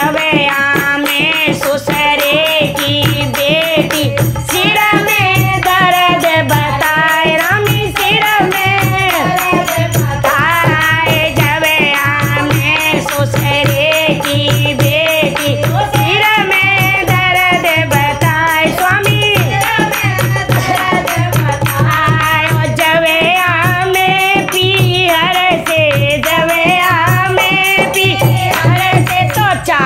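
Women singing a Hindi folk devotional song, accompanied by a dholak drum beating a steady rhythm and a small metal percussion jingling on the beat.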